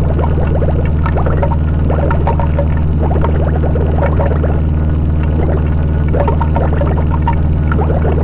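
Harsh noise music: a loud, unbroken low drone under a dense layer of bubbling, gurgling warbles and scattered clicks.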